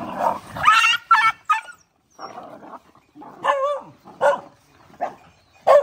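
Several dogs give short, wavering yelps and barks, one call about every second, as they squabble over a shared pile of food.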